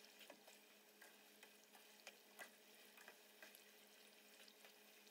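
Slices of pork deep-frying in a pot of vegetable oil over low-to-medium heat: a quiet, steady sizzle broken by scattered sharp pops and clicks as tongs turn the pieces.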